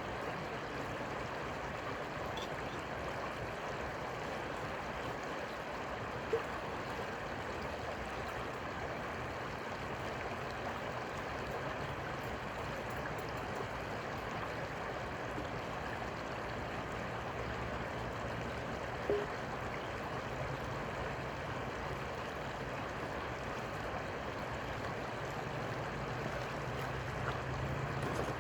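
Steady rush of flowing river water with a faint low hum underneath, broken by two brief clicks.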